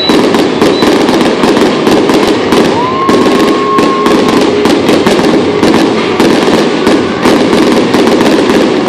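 Aerial fireworks display: shells bursting in dense, continuous crackling and popping, loud throughout, with a rising whistle that holds for about a second around three seconds in.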